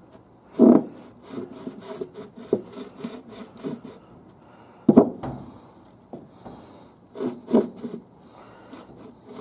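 Parts and tools being handled on a workbench during a transmission rebuild: irregular knocks, clicks and rubbing. Louder knocks come about a second in, around five seconds, and a pair near the end.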